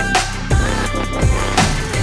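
Electronic background music with a steady deep bass and a drum beat.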